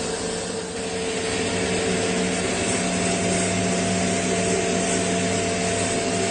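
CNC lathe running: a steady whirring machine noise with a couple of constant tones.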